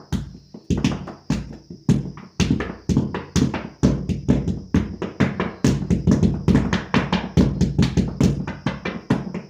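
Hands drumming on the side of a mattress, imitating a dhol: a fast, steady rhythm of thumps and slaps, with heavier beats about twice a second and quicker strokes between.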